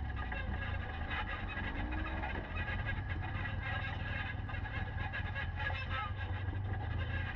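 Polaris RZR side-by-side engine running over a steady low rumble as it drives the dirt trail, its pitch rising briefly about two seconds in.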